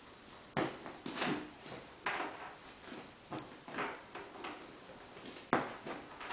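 Two Cairn terriers at play, making a string of short, irregular scuffling sounds, the sharpest about five and a half seconds in.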